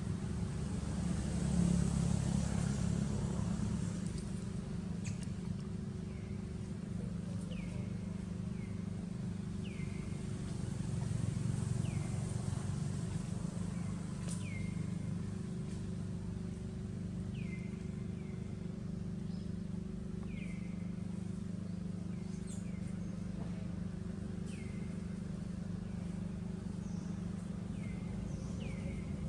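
Outdoor background of a steady low hum, like distant engine traffic, with a short high falling chirp every second or two.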